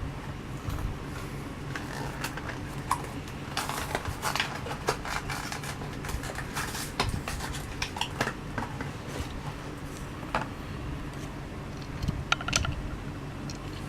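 Hot Wheels blister-card package being opened by hand: irregular crackles and clicks of plastic and cardboard, bunched through the middle, over a steady low hum.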